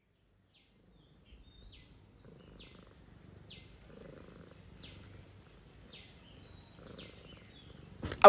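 Domestic cat purring while being stroked, a low rumble that swells and fades with each breath, with short high chirps about once a second over it. A brief loud burst near the end.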